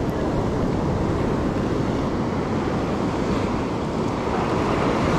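Ocean surf breaking and washing up a sandy beach in a steady rush, with wind rumbling on the microphone.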